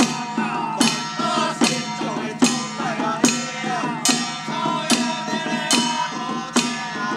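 Group of long-handled hand drums struck together in a slow, even beat, about one stroke every 0.8 seconds, with men's voices chanting a wavering melody between the strokes.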